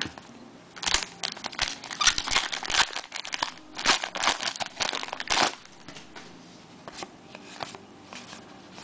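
A trading card pack wrapper crinkling and tearing as it is ripped open, a crackly run of rustles from about a second in to about five and a half seconds, then a few faint ticks of handling.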